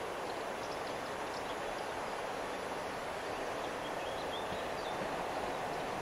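SNCF BB 9600 electric locomotive and its coaches approaching at low speed, a steady running noise that grows slightly louder near the end. A few faint bird chirps sound above it.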